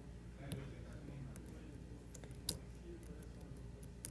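Lock-picking tools working inside a Medeco Biaxial lock cylinder: a few faint, scattered metallic clicks, the loudest about two and a half seconds in.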